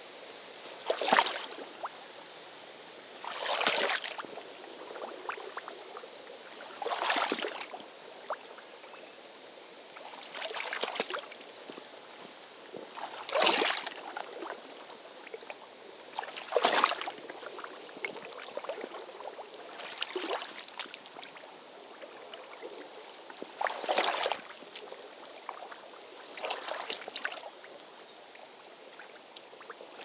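Slow wading steps in tall rubber hip waders through shallow stream water: a swishing splash with each stride, about every three seconds.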